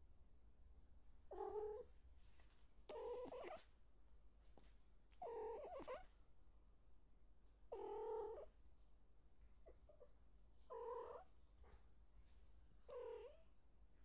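A cat meowing six times, each call under a second long, about every two seconds.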